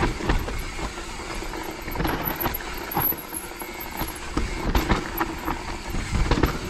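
Mountain bike descending a wet, rooty trail: tyres rolling over dirt and roots, with frequent irregular knocks and rattles from the bike, over a low rumble.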